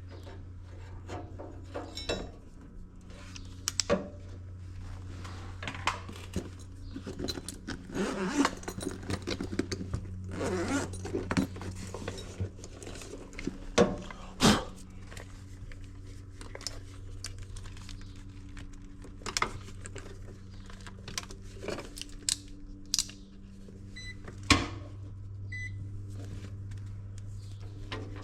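Scattered clicks, taps and rattles of a furnace run capacitor and multimeter test leads being handled during a capacitance test, over a steady low hum. The loudest knocks come about 14 and 24 seconds in.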